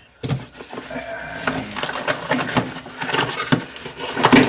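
Cardboard shipping box being opened by hand: flaps and tape scraping and rustling, with irregular clicks and knocks, the loudest knock near the end.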